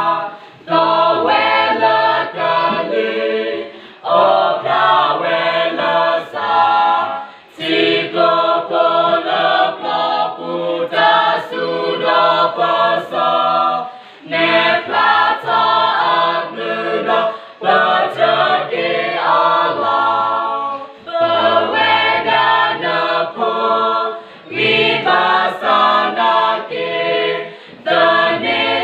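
A small mixed choir of young women and men singing unaccompanied, phrase after phrase, with short pauses for breath every few seconds.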